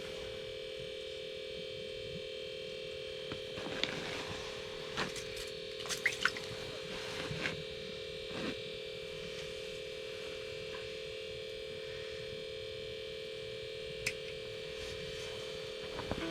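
A steady electrical-sounding hum, with a few light clicks and knocks a few seconds in and once more near the end.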